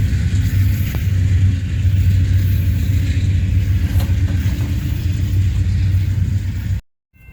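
Loud, steady low rumble of a passing train, cutting off abruptly shortly before the end.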